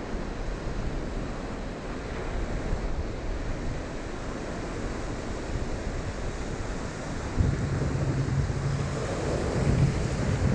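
Ocean surf washing in and out in the shallows, with wind buffeting the microphone; a louder, deeper rumble of water and wind comes in about seven seconds in.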